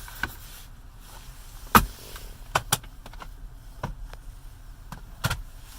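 About six sharp clicks and knocks from plastic interior parts of a car cabin being handled, such as covers and lids being opened and shut, with the loudest a little under two seconds in.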